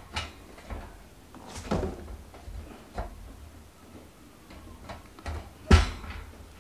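Wire-mesh grill grate of a small portable barbecue grill being handled: scattered light knocks and rattles, with one louder knock near the end.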